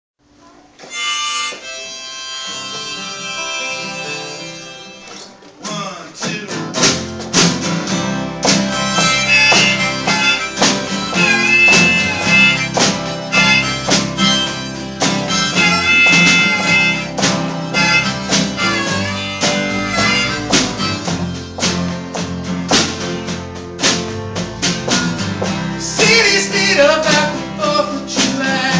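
Harmonica plays a held solo intro. About six seconds in, acoustic guitars and drums come in together, and the harmonica keeps playing over a steady band groove in a live folk-rock instrumental.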